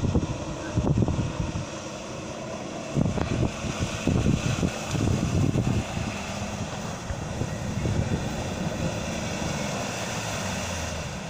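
Off-road 4x4's engine running under load as it drives through shallow water and mud toward the listener, the drone steadier and stronger in the second half. Gusts of wind buffet the microphone in the first half.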